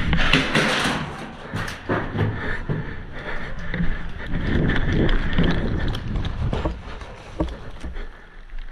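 Irregular thuds and rustling of a person moving on foot, with a few sharp clicks and wind on the microphone.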